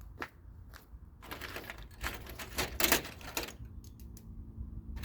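Metal hand tools clicking and clattering: a few separate clicks, then a dense run of rattling and clicking from about a second in, loudest near three seconds, then thinning out.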